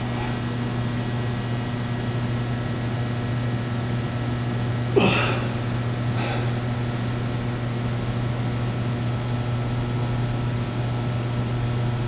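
Steady low hum of room noise, with one short, sharp effortful exhale from the lifter about five seconds in as he presses the incline chest press machine.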